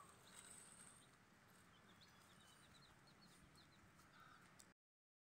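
Faint, scattered peeping of young chicks foraging on soil: short high chirps over quiet background, cutting off to silence near the end.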